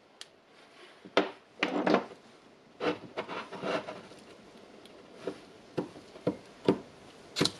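Irregular short scrapes, clicks and taps as a soldering iron tip and fingers work at the solder joints of a Milwaukee M12 battery's BMS circuit board, metal rubbing on metal and plastic.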